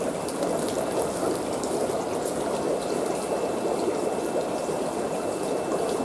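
Steady bubbling and trickling of water in aquarium tanks, a continuous even wash of water noise with a faint high whine and a few small ticks.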